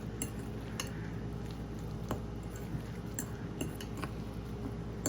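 Metal utensil clinking and scraping against a mixing bowl while a wet chicken, egg and cheese mixture is stirred, in irregular separate clicks.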